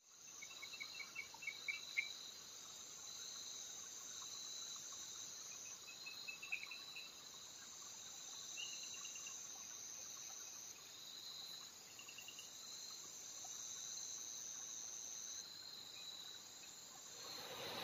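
A night-time forest insect chorus: a steady, high-pitched drone with a pulsing tone beneath it, and short chirp series breaking in every few seconds.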